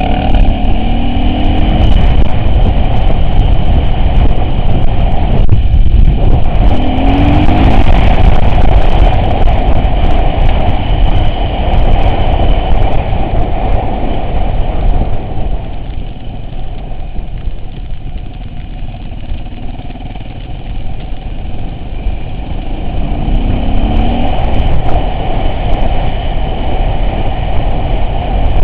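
Off-road vehicle engine running under load, its pitch rising briefly three times, with scattered clicks and knocks as it drives.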